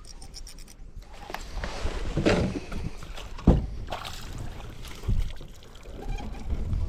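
A few scattered knocks and bumps aboard a fishing kayak, about five over several seconds, over a steady low rumble of wind and water.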